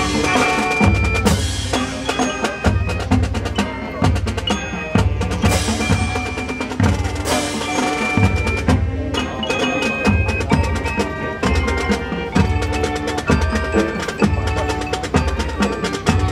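Marching band percussion section playing: a drumline of snare, tenor and bass drums striking in a steady rhythm, with front-ensemble mallet keyboards ringing out bright pitched notes over it.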